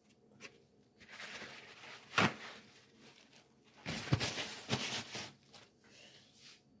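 Rustling and knocking of things being handled close by, with a sharp knock about two seconds in and a denser stretch of rustling and knocks around four to five seconds in.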